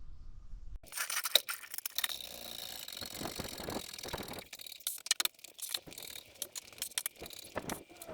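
Irregular metal clanks, rattles and scrapes as a car jack and ramps are worked under a car to raise it onto the ramps, beginning about a second in.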